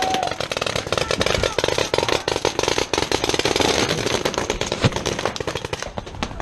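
Rapid paintball marker fire from several guns, a dense stream of sharp pops, heaviest for the first few seconds and thinning near the end.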